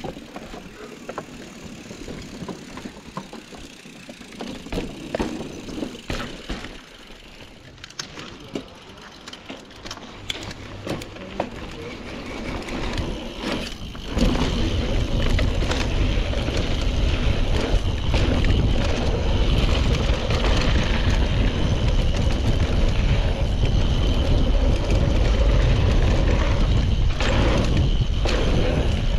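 Mountain bike riding down a dirt trail: clicks and rattles over rough ground, then about halfway through a sudden jump to a loud, steady low rumble of tyre and wind noise.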